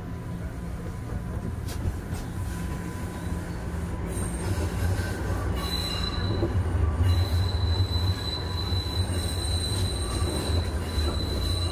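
Toronto Rocket subway train running, heard inside the car: a steady low rumble, with the steel wheels squealing on the rails. The high squeal sets in about halfway through and holds, dropping out briefly a couple of times, as the train grows louder.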